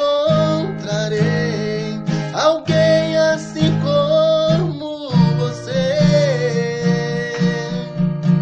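Sertanejo 'modão' music: an acoustic guitar (violão) strums chords under a sustained, wavering melody line that is most likely sung.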